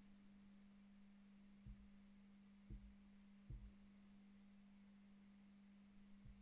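Near silence with a faint steady low hum and four soft, brief low thumps.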